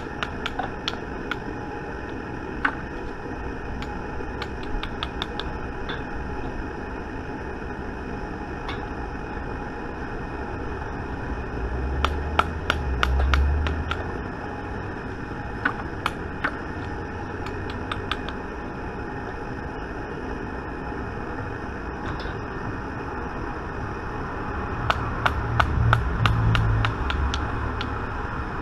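Sharp taps of a UHMW plastic stick striking a bullet mold, knocking the sprue plate open and the cast lead bullets out. The taps come in quick clusters, about 12 s in and again about 25 s in, over a steady hum.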